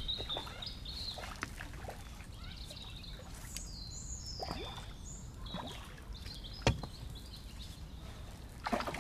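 Water splashing and sloshing as a hooked bream is played at the surface and drawn into a landing net, with small birds chirping and one sharp knock about two-thirds of the way through.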